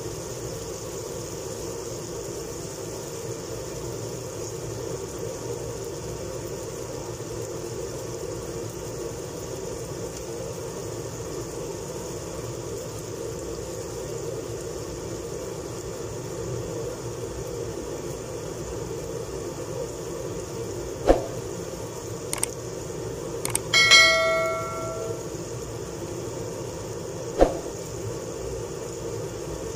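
Steady noisy drone in a home kitchen while chicken fries. Two-thirds of the way in come a few sharp clicks and one loud metal clang that rings on briefly, like cookware being knocked.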